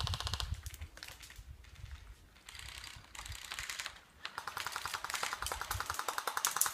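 Airsoft guns firing rapid full-auto bursts, each a fast, even string of clicks: a burst runs on at the start, shorter bursts come around the middle, and a long burst fills the last two and a half seconds.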